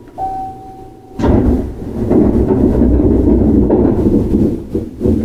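Aboard a stationary Keihan 9000 series train: a two-note chime, higher then lower, then a sudden loud rumbling noise that starts a little over a second in and lasts about four seconds.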